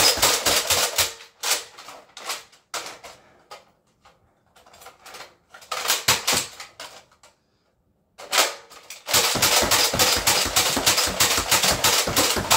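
Nerf Alpha Trooper pump-action blaster slam-fired at full speed: quick runs of clacking pump strokes and dart shots. The firing breaks off for a few seconds in the middle with only scattered clicks, then resumes in a long fast run over the last few seconds.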